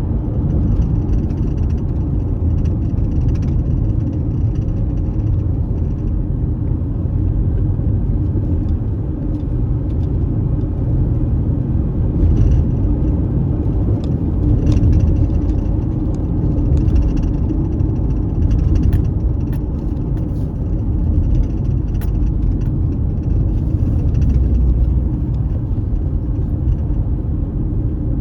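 Car driving along, heard from inside the cabin: a steady low rumble of engine and road noise, with a few faint light ticks.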